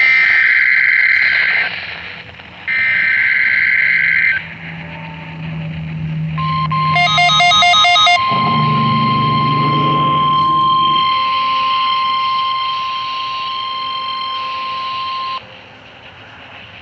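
NOAA Weather Radio emergency alert broadcast for a Required Weekly Test: two harsh, screeching digital SAME header bursts in the first four and a half seconds, then, about six seconds in, the steady 1050 Hz weather-radio warning alarm tone, held for about nine seconds before it cuts off. About seven seconds in, a second of rapid electronic beeping sounds over the tone.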